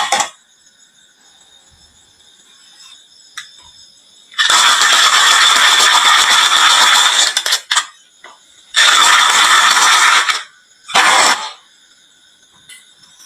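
Marbles rolling and rattling down a wooden marble run. One long run of about three seconds starts about four seconds in, a second of about a second and a half follows near nine seconds, and a short one comes near eleven seconds.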